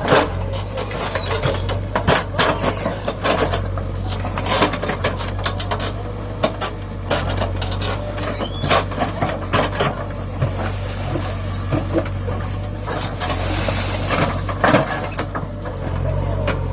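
A backhoe loader's diesel engine running steadily, with frequent short clanks and knocks throughout.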